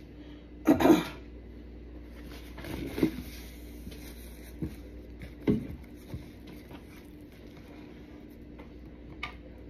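A few separate knocks and light clatter of objects being handled and set down on a wooden tabletop, the loudest about a second in, over a faint steady hum.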